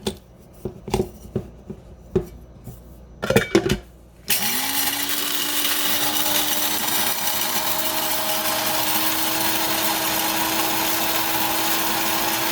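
A few sharp clicks and knocks, then about four seconds in the KitchenAid BCG111OB blade coffee grinder's motor starts and runs steadily, its stainless steel blade grinding whole coffee beans, with a steady motor hum that rises quickly as it spins up.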